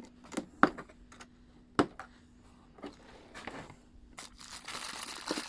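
Handling of a boxed air nail gun and its accessories: a series of light knocks and clicks as items are picked up and moved, then rustling of packaging from about four seconds in.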